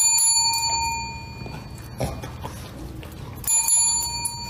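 Metal desk service bell rung twice, the first ring at the start and the second about three and a half seconds in, each a clear ding that fades over about a second.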